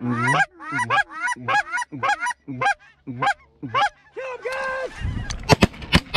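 Loud goose honks, one after another, about two a second, then one longer drawn-out call. About five seconds in, a quick string of shotgun shots begins at the incoming flock.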